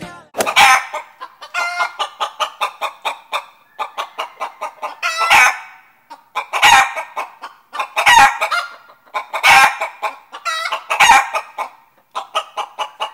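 Chicken cackling: runs of quick clucks, each ending in a louder, drawn-out squawk, repeating about every one and a half seconds.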